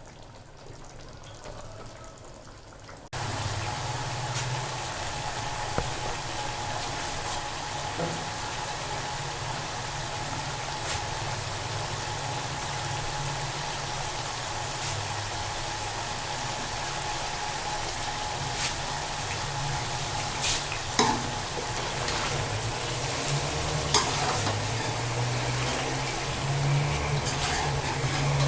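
A pan of frying onions and garlic starts sizzling suddenly about three seconds in as yogurt goes in, then keeps sizzling steadily while it is stirred, with an occasional clink of the spoon against the pot.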